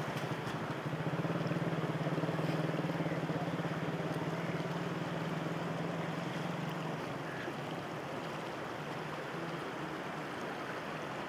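A small engine running steadily with a fast, even pulse, its hum fading after about seven seconds, over the steady wash of fast-flowing floodwater.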